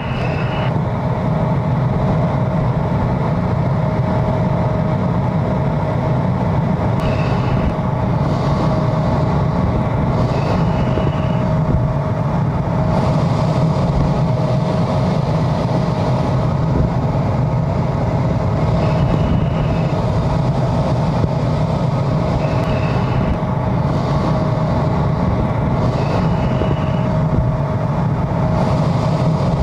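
Steady jet aircraft noise in flight: an even rumble with a constant hum tone running through it, and a short higher beep sounding several times, every few seconds.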